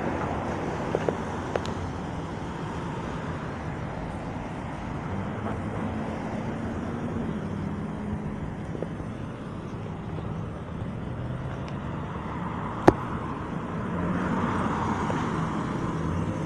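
Street traffic: cars passing close by with tyre noise and engine hum that swells twice and fades. One sharp click about thirteen seconds in.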